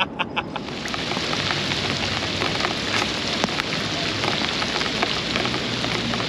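Rain pattering steadily on water, a dense even hiss full of small ticks that sets in about half a second in, after a few short sharp sounds at the very start.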